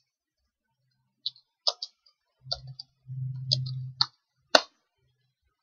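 Computer keyboard keystrokes: about six separate key clicks as a terminal command is typed, the last and loudest one about four and a half seconds in. A faint low hum sits underneath for about a second before that last click.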